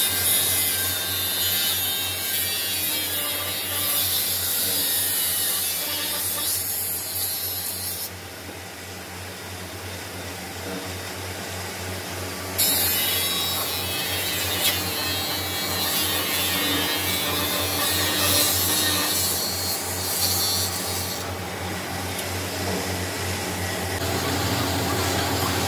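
An abrasive cut-off wheel on a belt-driven electric saw grinding through a rusty iron engine cylinder head with a harsh, high hiss over the motor's steady hum. The cutting stops about eight seconds in, starts again some four seconds later, and eases off near the end.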